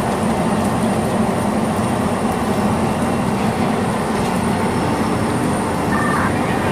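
Steady machinery rumble and hum, with a thin constant high whine over a wash of noise, typical of engine or aircraft ground equipment running on a rainy airport apron. A short two-note electronic beep comes about six seconds in.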